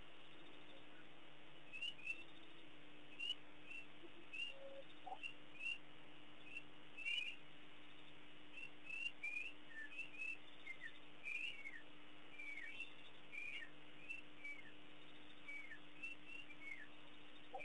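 Many short, high chirping calls from night animals, each one falling quickly in pitch, coming irregularly about once or twice a second, over a faint steady low hum.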